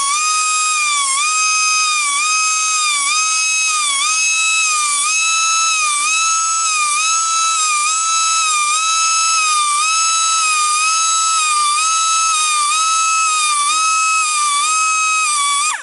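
Powered band saw blade sharpener grinding tooth by tooth: a loud, high motor whine that dips in pitch at a steady rhythm, about once every 0.7 seconds, as the wheel takes each tooth, then cuts off abruptly at the end.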